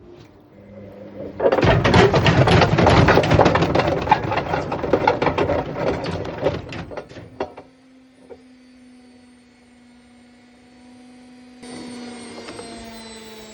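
Bush WMDF612 washing machine in service mode with two wet towels and worn drum bearings: the drum clatters and bangs loudly for about six seconds, then the noise drops away to a steady motor whine.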